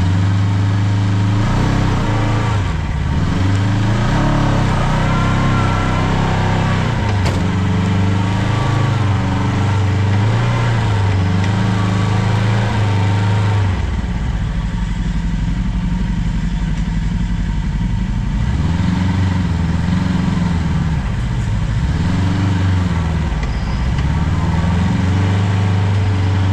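Side-by-side UTV engine running, its revs rising and falling again and again.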